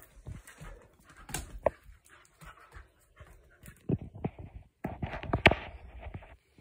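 A dog panting and moving about, with scattered clicks and rustles; the loudest is a sharp knock about five and a half seconds in.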